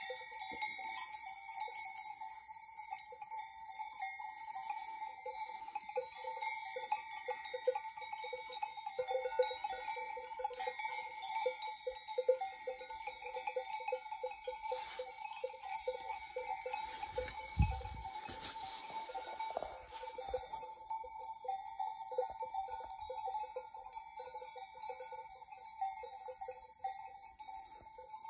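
Bells on a grazing flock of sheep, clanking and ringing continuously in quick, irregular strikes over a steady ringing tone. A brief low thud a little past halfway.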